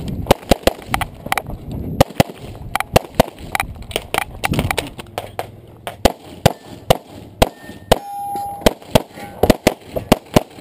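Semi-automatic pistol fired in rapid strings, sharp shots often several a second with short pauses between strings, mixed with metallic clangs and a brief ringing tone, typical of steel targets being hit.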